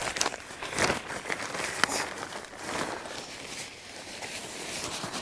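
Camping-gear fabric rustling and crinkling as it is handled and packed into its carry bag, with a few sharp clicks in the first two seconds.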